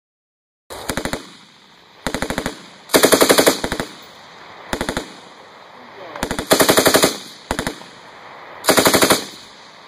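M249 SAW light machine gun firing 5.56 mm in short bursts of automatic fire, about seven bursts of rapid, evenly spaced shots, some louder and longer than others.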